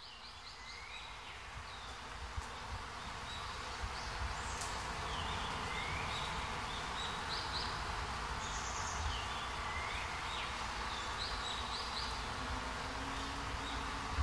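Evening outdoor ambience fading in: a steady buzzing, insect-like hum with short chirping bird calls that recur every few seconds, and a few light clicks.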